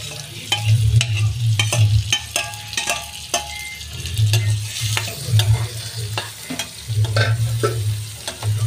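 A steel ladle scraping and clicking against a frying pan as chopped capsicum and tomato are stirred into onions frying in oil, with a light sizzle and repeated dull low knocks.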